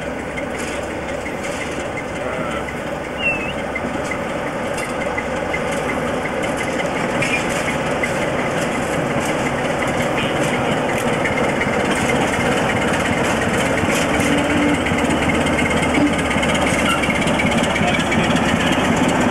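Class 47 diesel locomotive's Sulzer twelve-cylinder engine running as it hauls coaches, growing steadily louder as it comes closer and passes.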